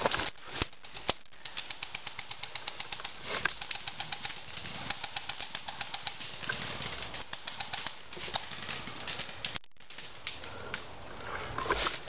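Airsoft guns firing in a rapid series of sharp clicks, about eight shots a second for several seconds, then sparser shots mixed with rustling.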